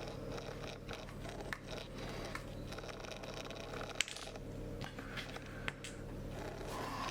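Small clicks and scrapes of hand tools working on the body of a Fujifilm X-T2 camera during disassembly, with one sharper click about four seconds in, over a steady low background hum.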